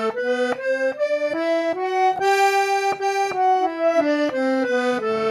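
Small piano accordion's right-hand keyboard playing a G major scale, one octave up and back down in even, detached notes of about a third of a second each. Each note sounds with a second reed an octave above.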